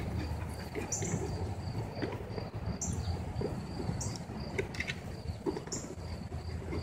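Insects trilling steadily outdoors in a fast, even, high-pitched pulse, with short higher chirps about every second or two over a low rumble.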